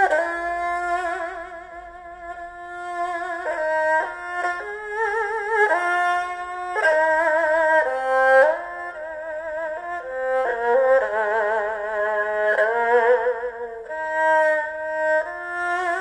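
Recorded music played through Qualio IQ semi-open-baffle hi-fi loudspeakers: a slow instrumental melody of held notes with strong vibrato, several lines moving together in chords and changing note every second or two.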